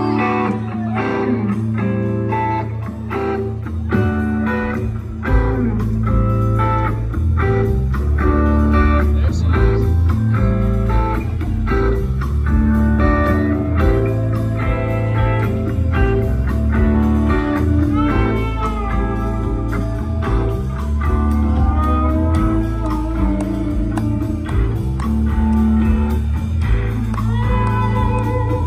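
Live rock band playing amplified music: electric guitars over bass and drums, with the low end coming in about five seconds in.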